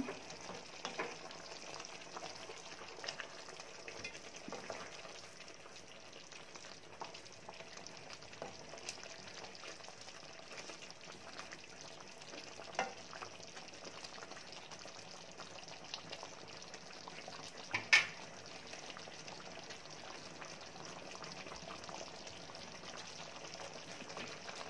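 Chicken in thickening coconut-milk sauce simmering in a frying pan, a steady sizzling bubble, with a wooden spoon stirring and scraping through it and scattered small knocks on the pan. One sharp clack about 18 seconds in is the loudest sound.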